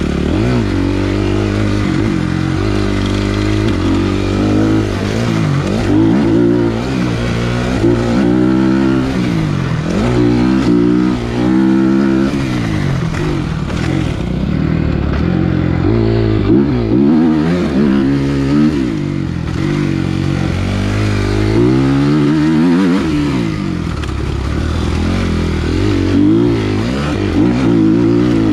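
Suzuki motocross bike's engine being ridden hard, revving up and dropping back over and over, its pitch repeatedly climbing and falling.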